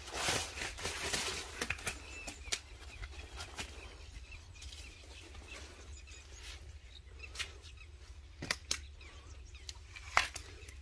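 Rustling of a mesh fishing net being shaken out, then scattered sharp slaps and taps as caught tilapia flap on the rock and are handled. The loudest slap comes near the end.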